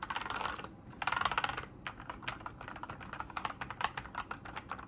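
Royal Kludge RK84 mechanical keyboard with lubed AKKO Cream Yellow Pro linear switches being typed on fast. Two quick runs of keystrokes in the first two seconds, then a steady stream of separate key presses.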